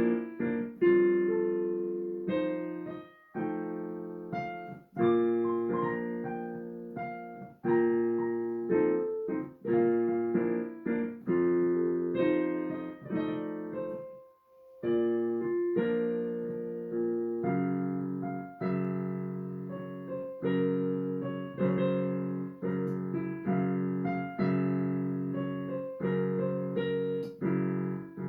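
Solo piano playing a slow piece in full chords, each struck and left to ring and fade, with a short pause about halfway through.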